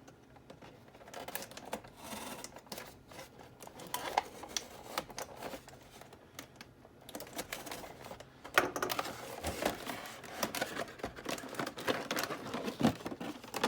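Toy packaging being cut free and handled: a run of small clicks and snips as the plastic bands holding the pieces are cut, with plastic rustling. The handling gets busier and louder about eight seconds in.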